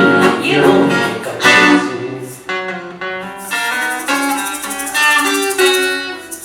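Instrumental music: a violin melody over guitar accompaniment, after the singing has stopped.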